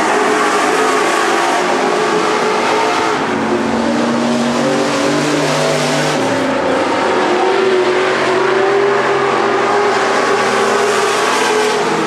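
Several dirt-track stock cars racing, their engines running hard, with overlapping engine notes that rise and fall as the cars throttle through the turns and pass by.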